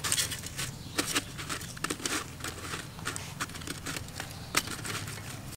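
Lemongrass stalks being laid and pressed by hand onto a bed of coarse salt in an aluminium pot: irregular rustling and gritty crackling with a few sharp clicks.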